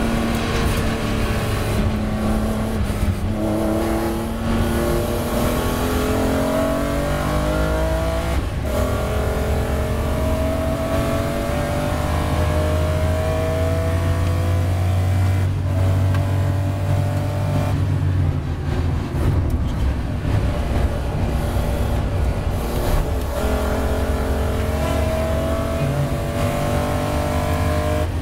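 BMW M3 race car's engine heard from inside the cockpit, pulling hard through the gears with several upshifts. It eases off for a few seconds about two-thirds of the way through, then climbs in pitch again near the end.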